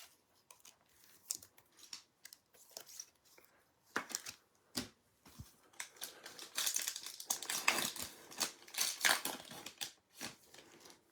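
Trading card pack wrapper being handled and torn open. Scattered light clicks and rustles come first, then a few seconds of dense crinkling from about six seconds in.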